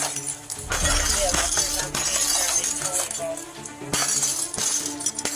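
Background music with sustained tones, over which a few sharp knocks are heard, one about a second in and one near four seconds.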